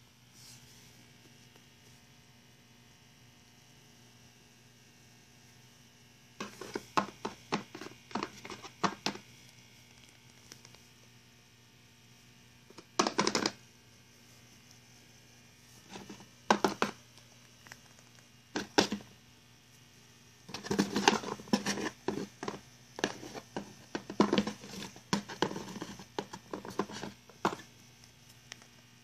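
Small plastic toy figurines being hopped and tapped along a cardboard box and floor: irregular runs of quick, light taps and clicks with quiet pauses between, busiest near the end.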